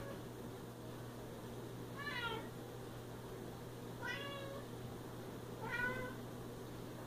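Siamese cat meowing: three meows about two seconds apart, each about half a second long and bending in pitch.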